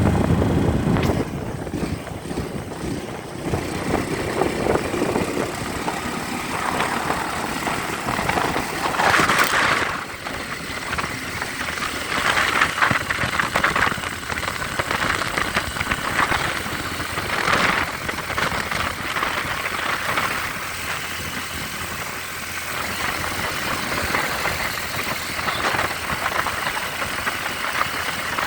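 Motorcycle engine running, loudest at the start and swelling several times in the middle.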